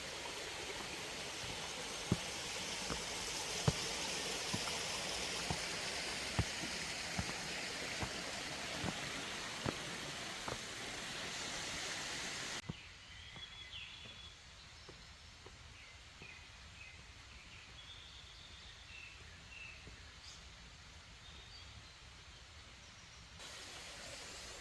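Mountain valley stream running, with a regular tick about every second. About halfway through it cuts to a quieter stretch with short, high bird chirps.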